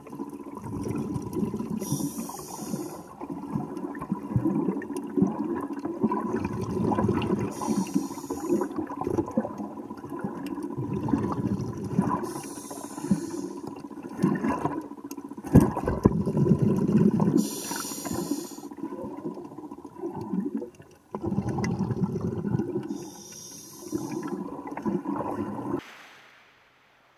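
Water churning and bubbling as a free-diver kicks with fins underwater, heard from an underwater camera, with a short hissing splash every five or six seconds. The sound drops away near the end.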